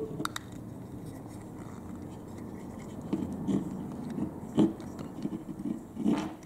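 Faint handling noise from a metal retractable utility knife: a couple of light clicks at the start, then soft scraping as the body is worked and pressed to get it to swing open for a blade change.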